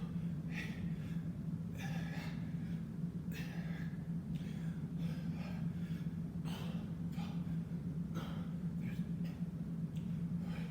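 A man breathing hard in short, sharp gasps, about one breath a second, from heavy exertion.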